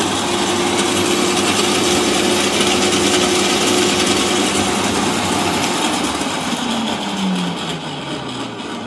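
Parkside PWH 2800 B2 electric roller shredder running empty in forward: a steady motor hum. About six and a half seconds in it winds down, the pitch falling as it slows.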